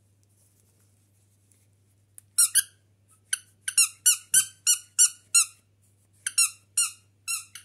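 Squeaky dog toy squeezed in quick runs of short, high squeaks, each dipping slightly in pitch. They start about two seconds in, pause briefly near six seconds, then a few more come near the end.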